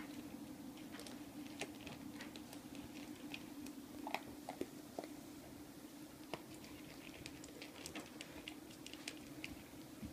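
Great Pyrenees puppy crunching dry kibble from a metal food bowl: quick, irregular crisp crunches and clicks, over a steady low hum.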